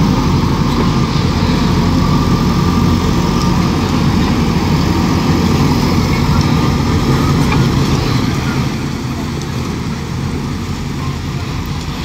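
JCB 4DX backhoe loader's diesel engine running steadily as the machine drives with a loaded front bucket; the sound drops somewhat about nine seconds in.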